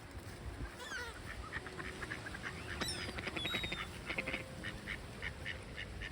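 Gulls calling: a couple of gliding cries near the start, then a run of short, repeated calls, about three a second. Wind rumbles on the microphone underneath.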